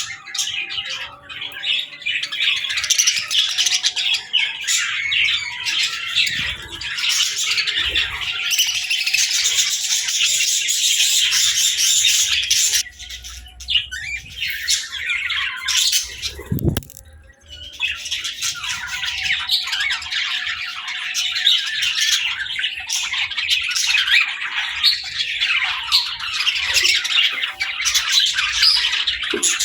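A group of budgies chirping and chattering in a dense, overlapping stream of high calls and squawks. The chatter drops off briefly a little past halfway.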